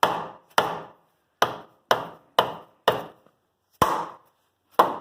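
A big steel hammer striking a wood block held against a seized, press-fit front-axle spindle to drive it out. There are eight heavy blows, about half a second apart with a couple of longer gaps, each a sharp knock that rings briefly.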